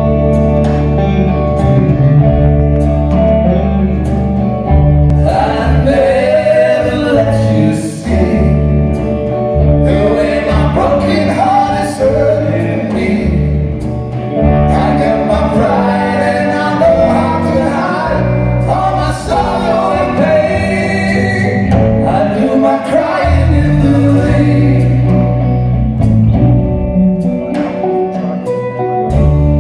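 Live band playing a pop ballad: two men singing together at microphones over electric guitar and drums.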